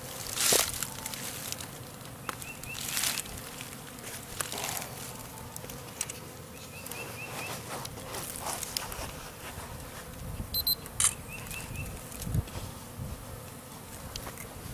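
A clustered swarm of honeybees buzzing steadily, with occasional brief rustles and knocks from the bush being handled.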